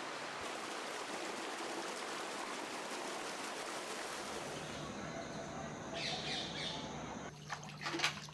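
Steady rush of a mountain waterfall, then a change about five seconds in: bird chirps around six seconds in and a few sharp clicks and knocks near the end.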